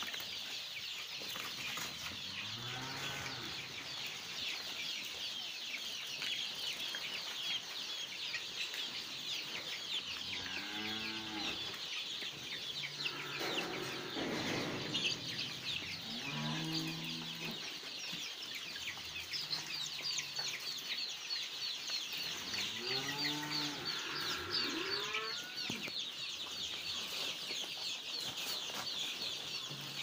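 A shed full of young desi chicks cheeping constantly: a dense, high chatter of many birds at once. Every few seconds a lower, drawn-out call rises through it.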